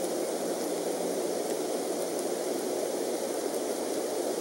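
Steady rushing noise of rain falling on the nest tree and its leaves, with a few faint ticks of drops.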